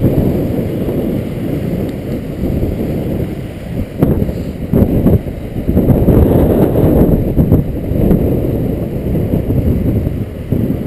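Wind buffeting the microphone: a loud low rumble that swells and dips, with a few brief knocks about four to five seconds in.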